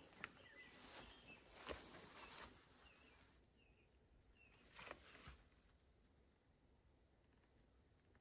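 Near silence: a faint, steady high insect chirring with a few soft bird chirps, and several soft steps or rustles in the first half.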